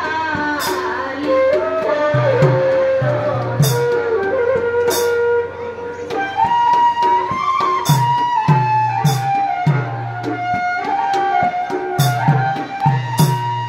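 Assamese devotional music. A khol barrel drum beats a rhythm, small hand cymbals clash in pairs every few seconds, and a bamboo flute and a woman's voice carry a slow, gliding melody.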